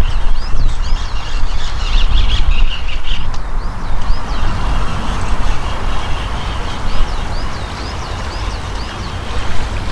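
Wind buffeting the microphone with a gusting low rumble. Over it a bird calls in quick runs of short, high, hooked notes, in the first few seconds and again near the end.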